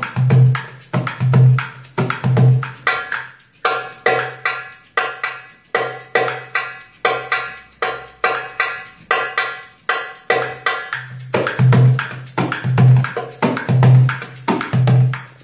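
Metal darbuka (Arabic goblet drum) played in a fast, steady groove: deep dum strokes in the centre of the head alternating with sharp, ringing tek strokes at the rim, with an egg shaker held in the playing hand adding a continuous shaking hiss. The deep dums thin out for several seconds in the middle, leaving mostly ringing rim strokes, and come back strongly near the end.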